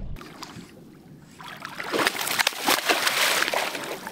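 Hooked largemouth bass thrashing and splashing at the water's surface beside the boat, starting about a second and a half in and growing louder, with repeated sharp splashes.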